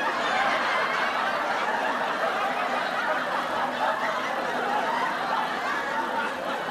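Laughter, a dense and steady stretch of a laugh track right after the punchline of a joke.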